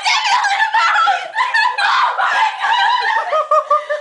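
High-pitched laughter and squealing from several young people, with a quick run of 'ha-ha' laughs near the end.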